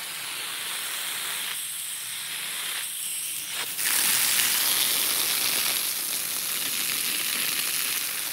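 Garden hose spray hissing steadily as the water hits the ground, jumping louder about four seconds in.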